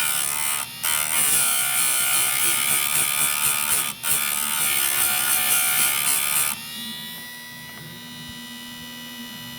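Electric chainsaw-chain sharpener's grinding wheel grinding a dull chain tooth: a harsh, steady grinding noise, broken by two brief gaps between passes. About six and a half seconds in, the grinding stops and a quieter steady electric hum remains.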